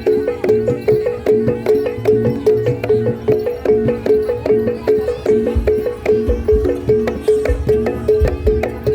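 Live Javanese gamelan accompaniment for barongan: pitched metal percussion strikes a repeating pattern of about four notes a second, and low drum strokes join in about five and a half seconds in.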